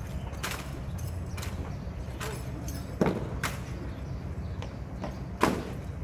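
Sharp, irregular knocks and slaps from a uniformed drill team's footwork as it marches, the loudest about three seconds in and again near the end, over a steady low rumble.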